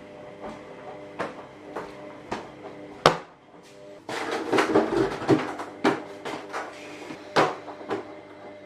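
A series of sharp clicks and knocks, irregular and thickest a few seconds in, over a faint steady hum.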